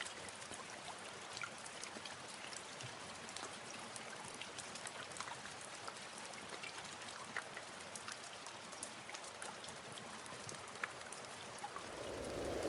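Faint steady hiss with many small scattered ticks, sounding like light rain.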